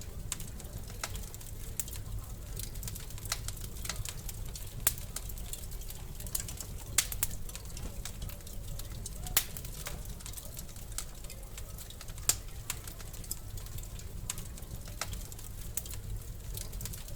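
Wood fire crackling in a fireplace: irregular sharp pops and snaps over a steady low rumble of the flames, with a few louder pops.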